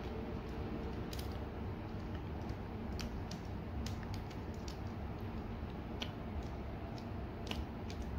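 Small plastic clicks and taps, scattered and irregular, as parts of a plastic transforming robot toy are handled and pegged together, over a steady low background rumble.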